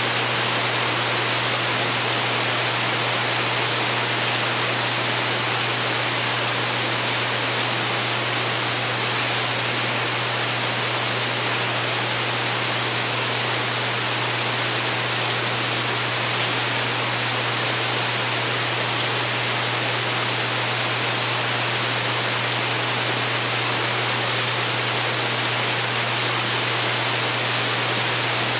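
Steady rain pattering on a porch roof: an even wash of sound with no breaks.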